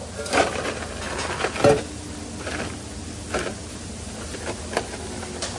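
Metal utensil clinking and scraping against a stainless steel bowl of fries as they are tossed and scooped into a paper bag, with paper rustling. About half a dozen sharp clanks, the loudest with a brief ring about a second and a half in, over a steady kitchen hum.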